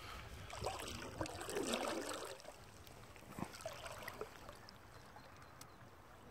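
Kayak paddle working through calm water: water swishing and trickling off the blade for the first couple of seconds, then fainter drips and a few light knocks.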